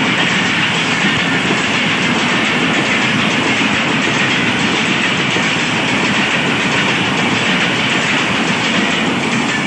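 Pakistan Railways passenger coaches rolling past at speed close by, their wheels clattering over the rail joints under a steady, loud rushing rumble.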